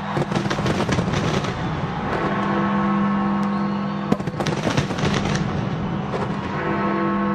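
Fireworks bursting in rapid crackling volleys, one cluster at the start and another about four seconds in, over sustained chords of music.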